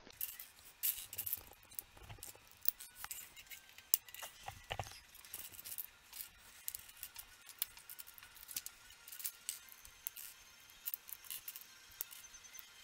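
LEGO plastic pieces being handled and pressed together: light, irregular clicks and clatter, a little busier about four to five seconds in.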